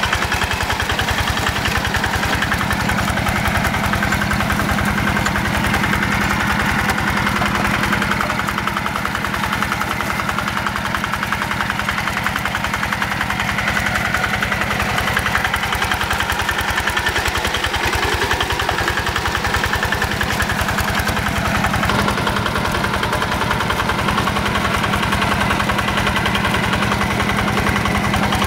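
Yanmar single-cylinder diesel engine of a Quick G1000 hand tractor running steadily under load as it works through paddy mud, a fast even chugging beat.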